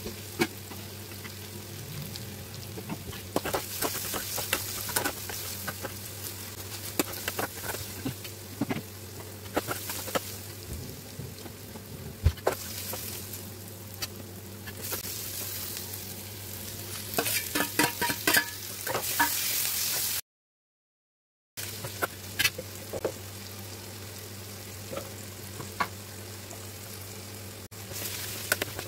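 Onions frying and sizzling in an aluminium kadai while a ladle stirs and scrapes against the metal pan. The sound drops out for about a second two-thirds of the way through.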